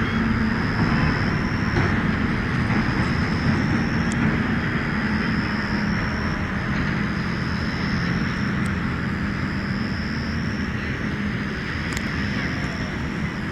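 A steady engine drone with a constant high whine above it.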